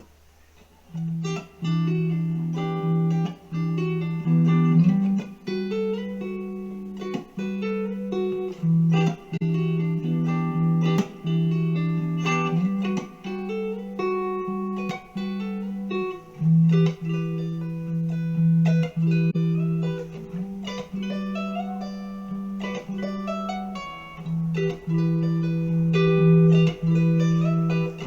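Instrumental guitar music: plucked notes in a repeating pattern over a held low note, starting about a second in.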